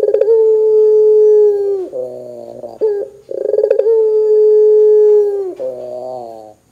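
Barbary dove (puter) cooing: two long, steady coos, each opening with a quick rolling rattle and dropping in pitch at the end, with shorter wavering notes between them and after the second.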